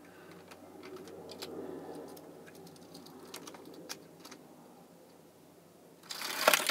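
Small plastic clicks and taps as die-cast toy cars are set in place at the top of a plastic toy-truck ramp, then about six seconds in a loud clattering rattle as four die-cast cars are released and roll down the ramp.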